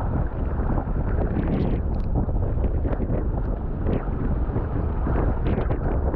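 Wind buffeting the microphone, with water splashing and slapping against a sailing kayak's hull as it moves under sail.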